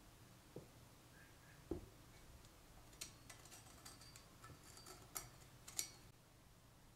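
Quiet handling noise from a steel axe head and a wooden handle blank. There are two soft knocks in the first two seconds, then a run of light clicks and taps a little past the middle.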